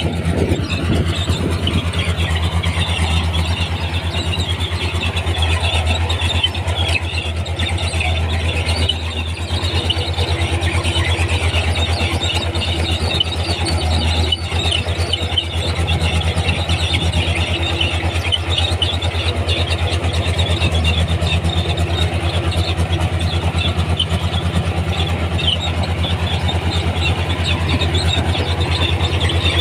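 Komatsu D31P crawler bulldozer's diesel engine running steadily, with a continuous high squeal from its steel tracks as it works.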